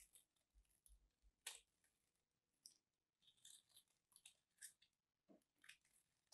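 Craft knife blade cutting into a dry, crumbly bar of soap, giving quiet, crisp crunching crackles in short separate bursts as small cubes and flakes break away. About five seconds in there is one duller knock.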